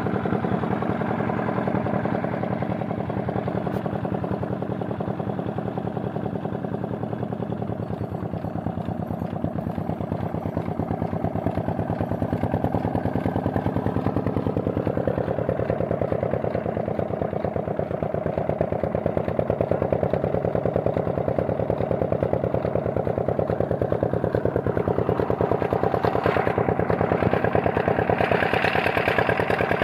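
Old Petter diesel engine running steadily under load, driving a tubewell pump by a flat belt, with a fast, even firing beat. It grows somewhat louder about halfway through.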